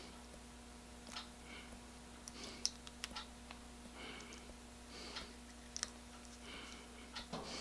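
Faint, scattered light clicks and ticks of small metal parts being handled: the jaws and springs of a Stanley Handyman eggbeater drill chuck being fitted together. A steady low hum runs underneath.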